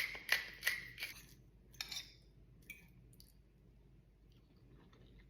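Pepper grinder being twisted: a quick run of sharp grinding clicks over the first second or so, then a few scattered light clicks and taps before it goes quiet.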